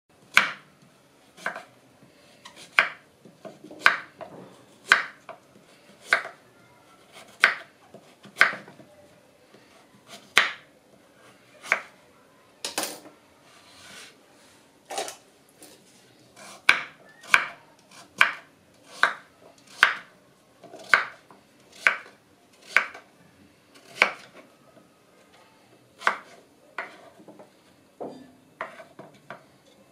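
Kitchen knife chopping peeled pumpkin into cubes on a wooden cutting board, each cut ending in a sharp knock of the blade on the board, at a slow, uneven pace of about one cut a second.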